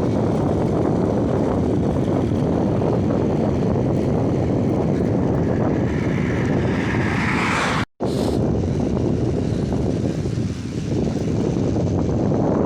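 Steady wind rushing over the microphone on a moving bicycle ride, dense and low, cutting out to silence for an instant about eight seconds in.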